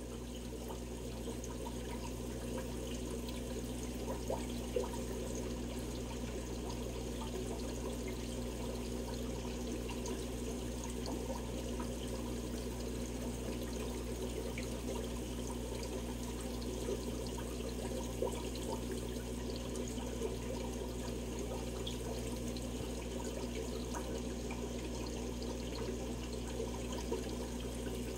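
Aquarium aeration bubbling steadily: air rising through a sponge filter's lift tube and an air stone, with small pops and splashes. A low steady hum runs beneath it.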